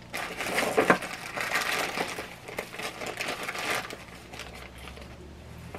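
Thin plastic crinkling and rustling as disposable plastic gloves are pulled from among plastic bags in a kitchen drawer; it is busiest for about four seconds, then dies down.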